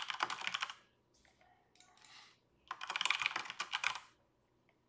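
Rapid typing on a computer keyboard in two short bursts of keystrokes: one ending just under a second in, the other starting nearly three seconds in.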